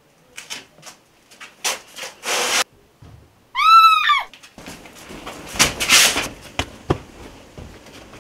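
Rustling and scraping of cloth and movement, then a short high-pitched cry about three and a half seconds in that rises and falls in pitch, the loudest sound. Irregular scuffling and knocking follow.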